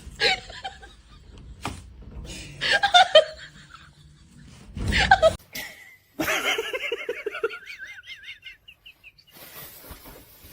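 People laughing in several bursts. About five and a half seconds in the sound cuts off abruptly, then a new run of quick, evenly spaced laughs rises into a high wavering squeal.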